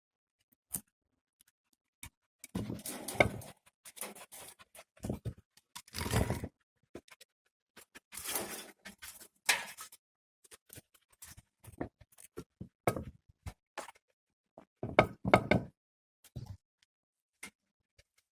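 Irregular knocks, thumps and scraping in a small room, coming in uneven clusters with short pauses between.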